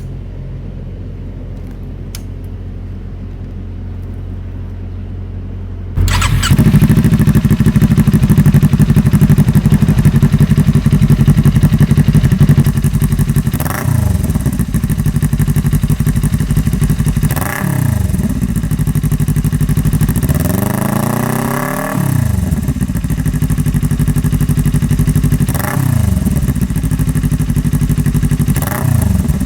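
Kawasaki Ninja 400 parallel-twin engine through an aftermarket exhaust. A low hum for the first six seconds, then the exhaust suddenly turns loud and idles. It is revved five times in short blips, the third one longer, rising and falling.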